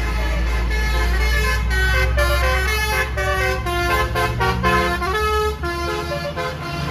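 Bus 'telolet' Basuri musical air horn playing a quick melody of short stepped notes, over the low steady sound of the bus engine.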